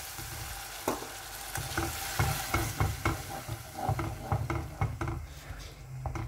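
Hot tomato sauce sizzling and hissing in a granite-coated pot just after a small glass of water is poured in, the hiss easing off near the end. A wooden spoon stirs through it with repeated short knocks and scrapes against the pot.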